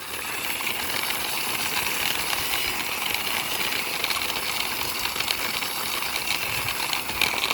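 Toy backhoe's plastic wheels rolling along a surface as it is pushed by hand: a steady grinding, hissing rolling noise.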